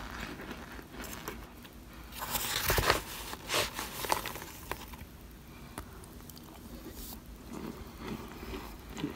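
Metal spoon pressing into and crushing cornstarch chunks in a foil pan, with light crunching, crackling and squeaking. A louder run of crunching comes about two to three seconds in.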